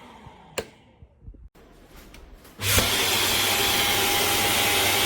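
Shark Detect Clean & Empty cordless vacuum (IW3612EU) switched off, with a click and a few light knocks of handling. It then starts up abruptly, a little more than halfway through, and runs steadily with a high whine.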